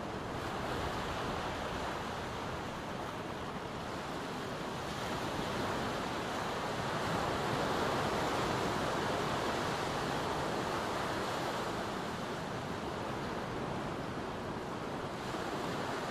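Small waves breaking and washing up a sandy beach, a steady hiss of surf that swells as a wave breaks about halfway through and rises again near the end.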